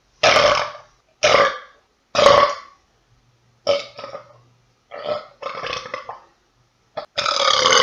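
Men burping after drinking beer, one burp after another: three loud burps in quick succession, then a run of shorter, quieter ones, and a long loud burp near the end.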